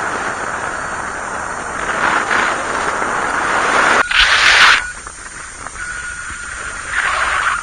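Wind rushing over the microphone in paraglider flight, coming in surges, with the loudest gusts about four seconds in and near the end. A faint steady high tone sounds under the wind in the second half.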